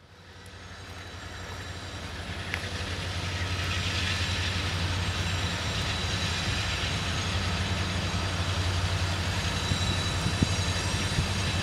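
Diesel locomotive engine running, a steady low rumble that fades in over the first few seconds and then holds even.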